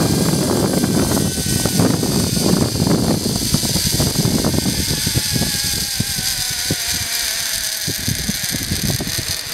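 Zipline trolley pulleys running along the steel cable with wind rushing past. A thin whine falls steadily in pitch through the middle of the ride as the trolley slows, over short rattles.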